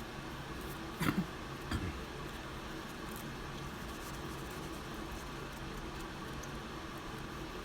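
Steady room hum and hiss, with two short, soft sounds about a second in and again just under a second later.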